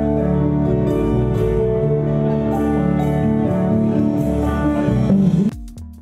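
Rock band playing live, with guitars over bass and drums. It cuts off abruptly about five and a half seconds in, and a sparser electronic beat takes over.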